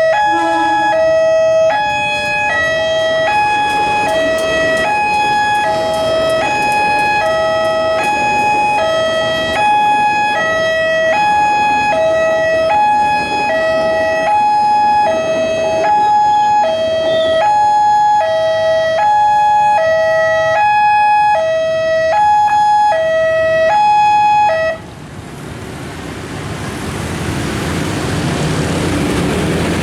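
Railway level-crossing warning alarm sounding: an electronic two-tone signal, a high and a low tone taking turns in a steady repeating pattern, which cuts off abruptly about 25 seconds in. After it stops, road traffic engines build up as vehicles move off.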